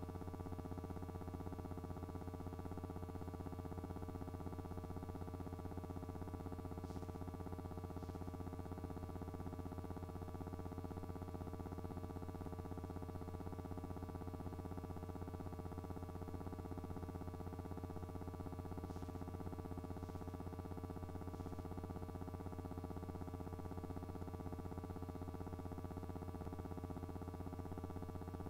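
Steady, unchanging electrical hum made of several fixed tones, the lowest the strongest. A few faint ticks come about a quarter of the way in and again about two-thirds through.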